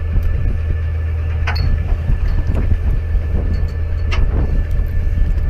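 Steady low drone of a fishing party boat's engine, with a few light clicks on deck.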